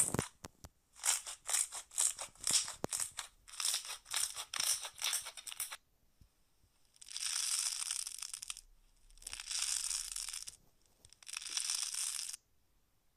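Hands squishing and pressing a soft slime, a run of short wet crackles and pops about two a second; then a crunchy slime shaped like a chocolate wafer squeezed and pulled apart, in three longer crinkling, crunching stretches.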